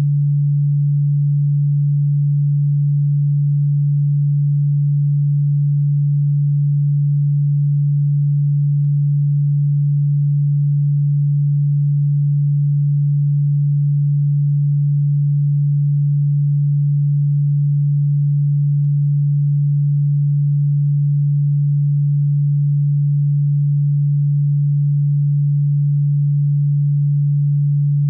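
A single steady electronic sine tone, low in pitch at about 150 Hz, held without any change. It is played as a supposed cockroach-repellent frequency.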